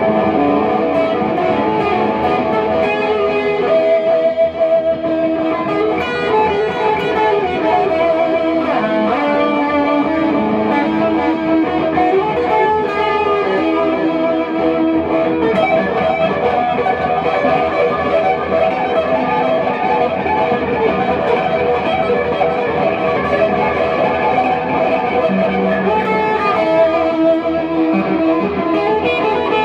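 Les Paul-style solid-body electric guitar being played without a break: a tune of picked notes and chords.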